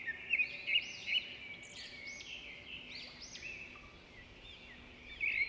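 Small birds chirping: a busy stream of short, high whistled notes that rise and fall, loudest near the start and again near the end.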